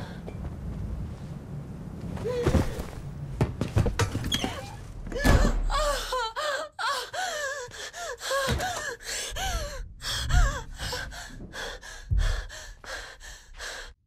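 A woman wailing and sobbing in repeated rising-and-falling cries with gasping breaths between them, from about five seconds in. Several dull thuds come under the cries.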